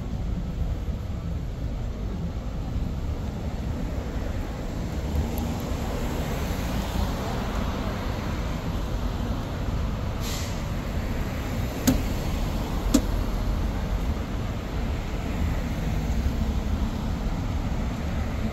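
Street traffic: a steady rumble of passing cars and buses. About ten seconds in there is a short hiss, and two sharp clicks follow a second apart.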